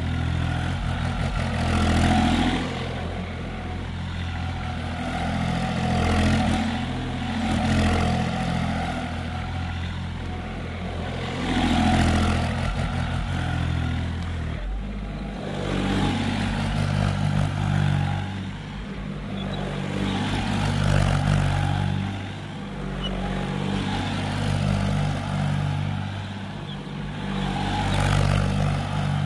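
John Deere tractor's diesel engine running as the tractor drives over spread paddy straw to thresh it, the engine note rising and falling every few seconds as it circles.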